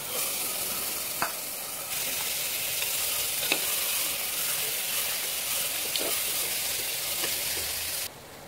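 Raw chicken pieces sizzling in hot onion-tomato masala in an open aluminium pressure cooker as they are stirred with a steel ladle. The ladle clinks against the pot a few times. The sizzle gets louder about two seconds in and cuts off sharply near the end.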